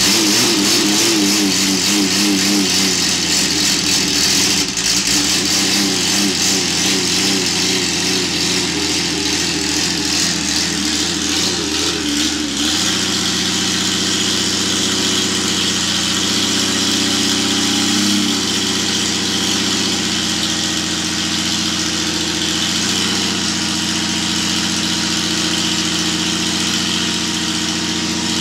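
Porsche 917 K's air-cooled flat-twelve racing engine running freshly started, its revs wavering up and down for about the first thirteen seconds, then settling to a steady, lower idle with one brief rise in revs about eighteen seconds in.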